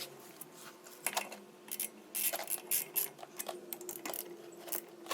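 Irregular sharp metallic clicks of a socket ratchet working, as the 14 mm brake caliper bolts are threaded back in and tightened.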